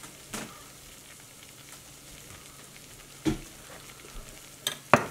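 Butter-and-flour roux sizzling and bubbling softly in a stainless steel saucepan. A few sharp knocks sound over it: one just after the start, one a little past three seconds, and two close together near the end.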